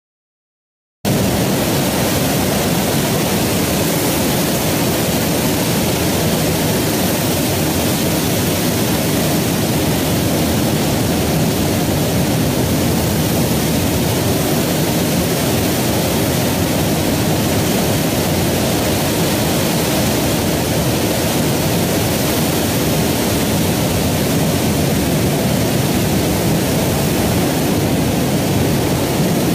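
Steady, loud rushing noise with no pitch or rhythm, like static, cutting in suddenly from dead silence about a second in.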